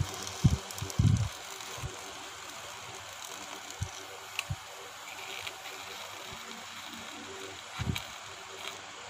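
Small DC hobby motor spinning with its bare shaft rubbing old adhesive off the edge of a phone's back cover, a steady whir, with a few low handling thumps, the loudest about a second in.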